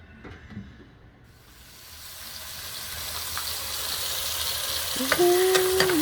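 Food hitting hot oil in a pot on a portable gas burner and starting to fry, the sizzle growing steadily louder, with a few sharp spattering pops near the end.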